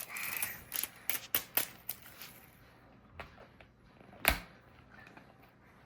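Plastic toy packaging being handled and pulled at: a quick run of clicks and crinkles for about two seconds, then a few faint taps and one sharp snap about four seconds in.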